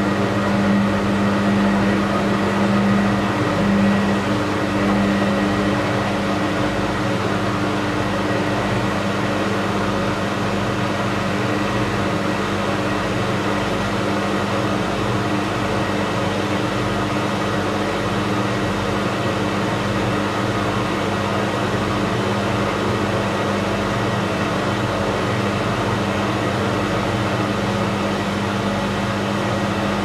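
Beko WKB 61022 front-loading washing machine in its spin phase: a steady motor hum over the rush of the turning drum. It eases slightly about five seconds in, then holds steady.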